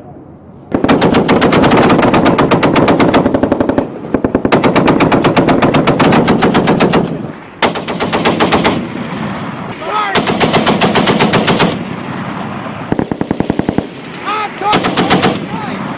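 M2 .50-calibre heavy machine gun firing in bursts: two long bursts of about three seconds each, then several shorter ones.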